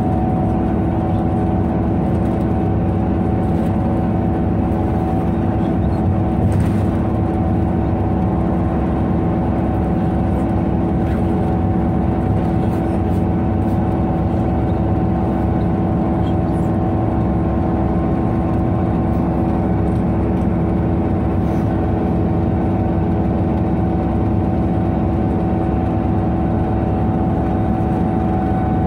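Irisbus Citelis 18 articulated city bus with its IVECO Cursor 8 diesel engine running steadily, a constant drone with a steady pitch that neither rises nor falls.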